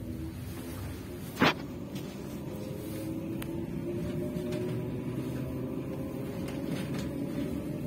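Moving train heard from the coach coupled to a class 754 diesel-electric locomotive: a steady running rumble with a faint hum that rises slowly in pitch over the later seconds. A single sharp knock cuts through about a second and a half in.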